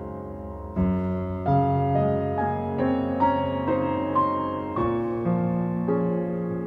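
Piano music: a slow melody over held chords, with a louder chord struck about a second in.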